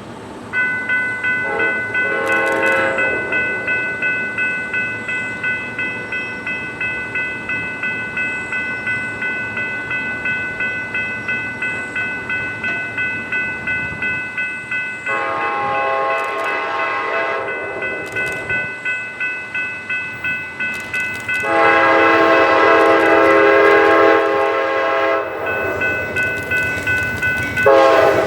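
Diesel locomotive horn sounding a short blast, a long blast and the start of another over a bell ringing steadily about twice a second, as a train approaches a grade crossing.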